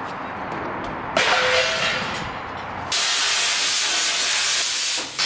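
A cutting torch hissing steadily as it cuts through steel plate. The hiss starts suddenly about a second in and gets louder about three seconds in.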